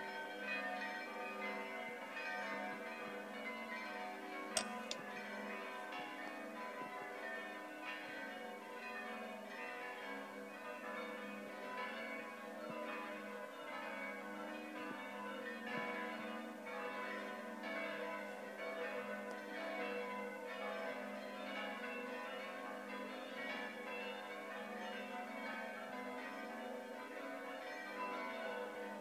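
Several church bells ringing together, their tones overlapping and struck over and over without a break: the midnight peal that marks the Proslava, seven days before Christmas. A sharp click about four and a half seconds in.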